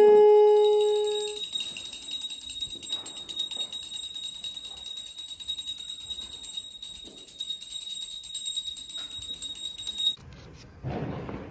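Small brass puja hand bell rung rapidly and without pause during the aarti, a bright high ringing that stops suddenly about ten seconds in. At the start a loud held note, steady in pitch, cuts off about a second and a half in.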